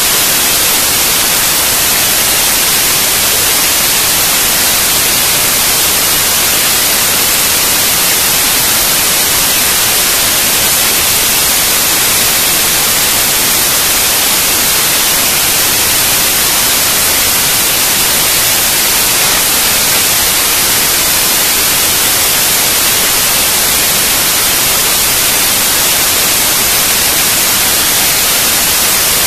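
Loud, steady static hiss, even and unchanging, with no other sound.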